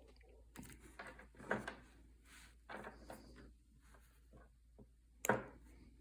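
Scattered soft handling sounds, short rustles and light clicks, from hands working fishing line around a fishing rod while tying a binding knot; the sharpest comes a little after five seconds in.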